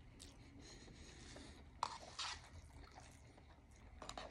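Faint sounds of a person eating cup ramen: noodles slurped in and chewed, with a sharp click and a brief scrape about two seconds in.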